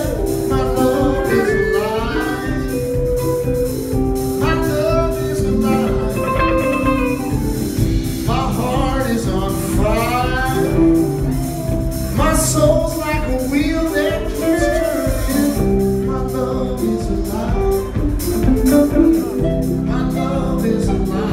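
Live rock band playing, with electric guitars, bass and keyboards under a singer's voice.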